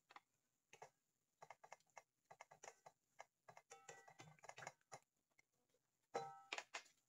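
Wooden spatula scraping and tapping against a plate and a frying pan, a run of small irregular clicks and knocks. Twice, near the middle and about six seconds in, a tap gives a brief ringing tone.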